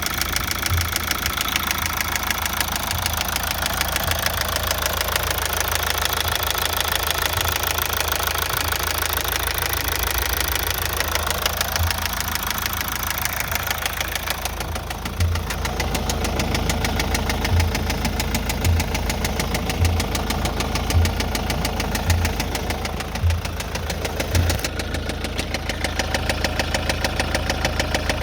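Mazda 6 2.2-litre Skyactiv-D four-cylinder diesel engine running, with a knocking that the owner questions as a possible fault. From about halfway through, a low knock comes about once a second over the engine noise.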